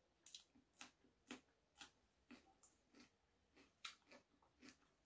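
Faint close-up chewing of a mouthful of rice and vegetables: soft wet mouth clicks about twice a second.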